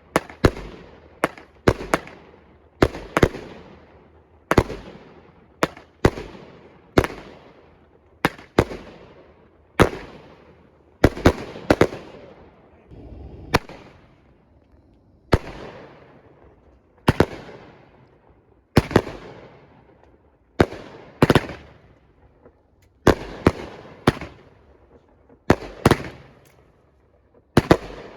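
Fireworks going off: a long series of sharp bangs, roughly one a second and sometimes in quick pairs, each followed by a fading echo.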